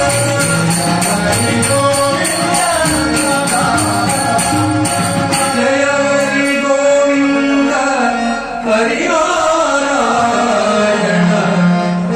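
Devotional bhajan: male voices singing over a harmonium, with tabla and small hand cymbals keeping a steady beat. The cymbal strokes stop about halfway through, and the sound drops briefly about eight seconds in.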